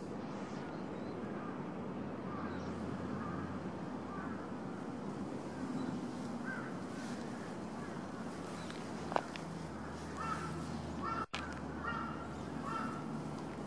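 Crows cawing several times, short calls clustered in the second half, over steady outdoor background noise, with one sharp click about two-thirds of the way in.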